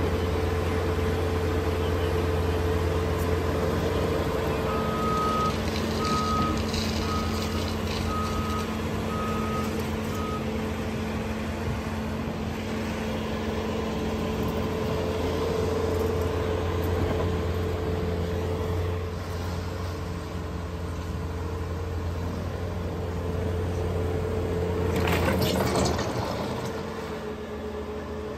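A Cat hydraulic excavator's diesel engine running steadily as it tears down a wooden building. About five seconds in, a backup alarm beeps six times, about once a second, and near the end there is a loud crunching crash of the building's structure breaking apart.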